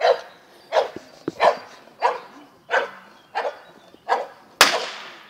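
A dog barking repeatedly, about one bark every two-thirds of a second. Near the end comes a single sharp crack of a blank-pistol shot, the loudest sound, with a short echoing tail. Such a shot is fired during heelwork in an IPO obedience test to check that the dog is not gun-shy.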